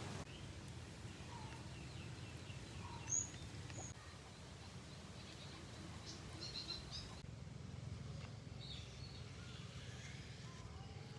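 Faint outdoor background noise, a steady low rumble, with a few short, high bird chirps scattered through it and one brief louder high sound about three seconds in.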